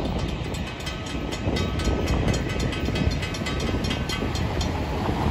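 Railroad crossing warning bell ringing in quick, even strokes, about four a second, as the crossing gate arms rise after the freight train has passed. The bell stops near the end, over a steady low rumble.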